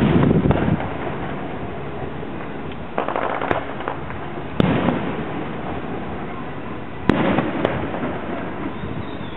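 Aerial fireworks bursting: a loud bang right at the start and four more at uneven gaps of one to three seconds, with crackling between the bangs.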